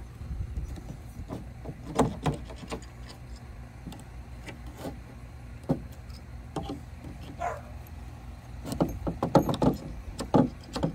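Long-handled steel pry bar working backed-out nails out of old weathered swingset deck boards: irregular knocks and clicks of metal on wood, with a brief squeak near the middle and a quick run of sharp knocks near the end, over a steady low rumble.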